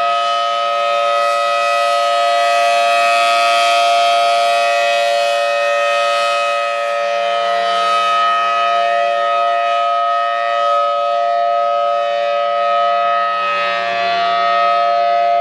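Emergency alert system alarm: a loud chord of several steady tones sounding together, held without a break and without rising or falling in pitch.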